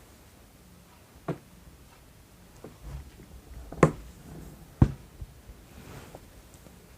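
Quiet room tone broken by a few scattered clicks and knocks: a smaller one about a second in, and the two loudest about a second apart in the middle.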